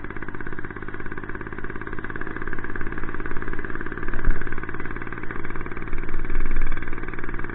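Motorized bicycle's small engine running steadily under way, with a rapid, even pulsing. There is a short low bump about four seconds in.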